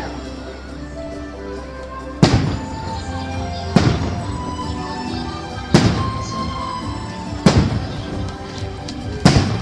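Fireworks shells bursting, five sharp booms with echoing tails, spaced about two seconds apart, over music that plays throughout.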